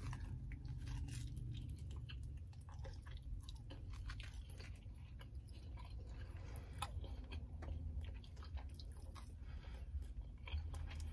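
A person chewing a mouthful of thin-crust pepperoni and sausage pizza: soft, irregular crunches and mouth clicks over a low steady hum.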